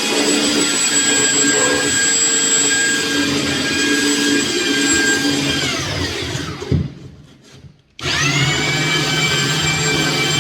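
Electric sander running at speed, sanding wood filler smooth on a stair nose, with a steady whine. About six seconds in it is switched off and winds down with a falling whine. About two seconds later it starts again and spins back up.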